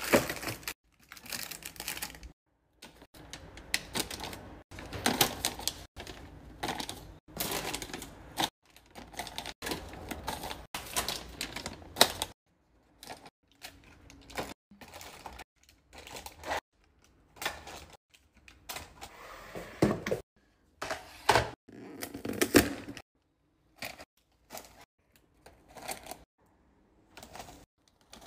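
Plastic-wrapped snack packets crinkling and tapping against clear plastic bins as they are set in one by one, with many sharp clicks and rustles in short irregular bursts and brief silences between them.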